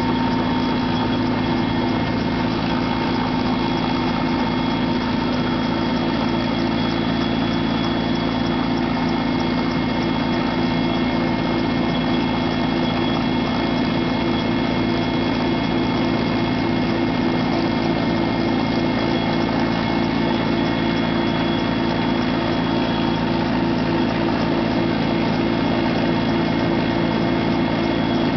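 Helicopter running steadily at close range: continuous rotor and turbine engine noise with a thin high whine.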